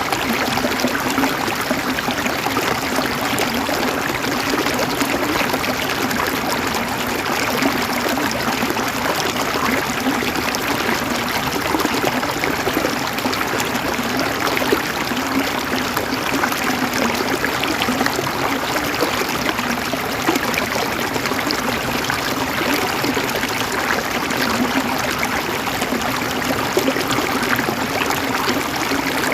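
River water running over stones in a steady, even gurgling rush.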